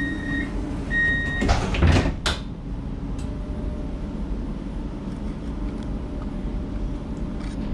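Light rail tram's door-closing warning beeping twice more, then the doors sliding shut with a thud about two seconds in. The tram's steady low hum carries on afterwards.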